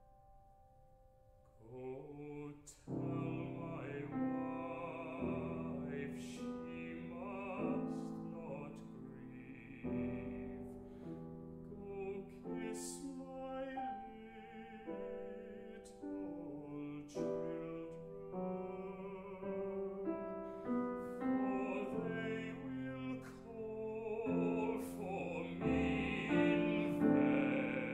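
Baritone singing a classical art song with grand piano accompaniment. After a hushed, fading piano note the voice comes in about two seconds in, with a wide vibrato over the piano.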